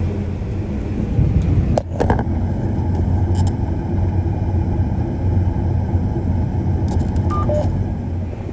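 Large farm machine's diesel engine running steadily, a continuous low drone, with a short break about two seconds in.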